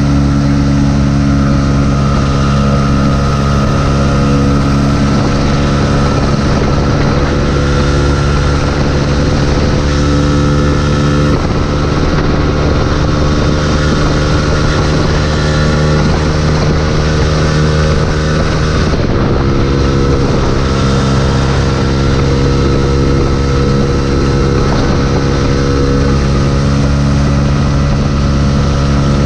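Yamaha YZF-R125's single-cylinder four-stroke engine running steadily at road speed, with wind rushing over the microphone. The engine note shifts slightly in pitch about two-thirds of the way through.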